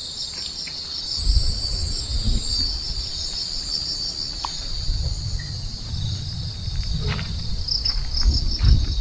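Night insects, crickets among them, trilling steadily in a high chorus with a faster pulsing chirp on top, over a low rumble that starts about a second in.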